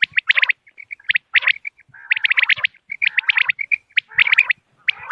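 Common quail calling: quick bursts of sharp, high notes repeated about once a second, with shorter single notes between the bursts.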